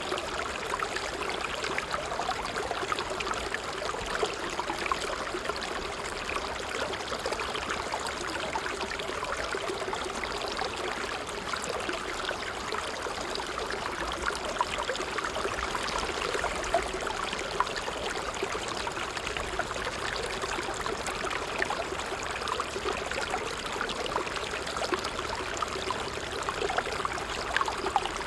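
Water trickling steadily, a continuous stream-like babble with many small splashes and gurgles.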